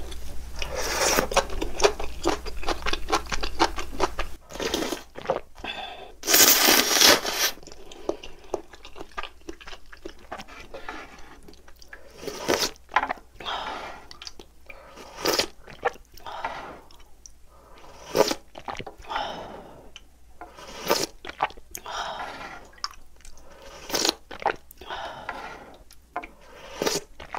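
Eating sounds: ramen noodles being slurped and chewed, with short wet mouth clicks and smacks. The loudest, a burst lasting over a second, comes about six seconds in.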